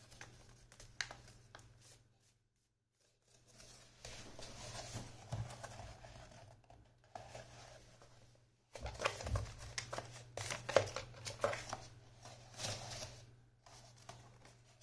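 Folded paper of a paper-fan craft rustling and crinkling as it is handled and pressed together, with scattered sharp clicks, over a steady low hum.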